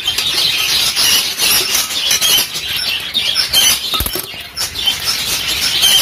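A flock of budgerigars chattering and chirping continuously, with a single sharp snip of hand shears cutting galvanised wire about four seconds in.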